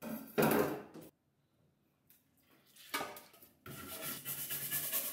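A dish brush scrubbing a wooden chopping board in a stainless steel sink under the running tap, in quick back-and-forth strokes that start a little past halfway. A short loud knock-and-rattle at the sink in the first second.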